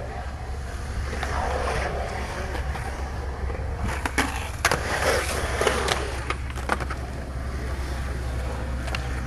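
Skateboard wheels rolling on concrete, a steady low rumble broken by several sharp clacks of the board.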